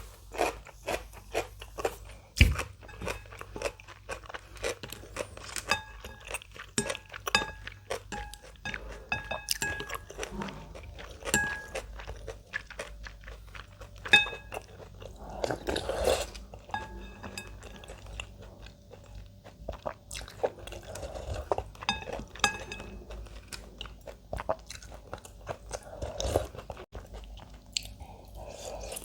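Close-miked chewing with frequent crisp, crunchy bites, as of cabbage kimchi and cubed radish kimchi eaten with ramen. There is a single low knock about two seconds in.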